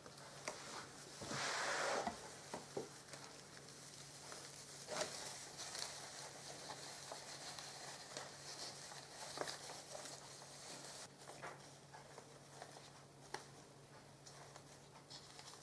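Faint rustling and soft crackling of dry sphagnum moss as it is handled and tucked around an orchid in its pot, with a louder rustle lasting about a second near the start.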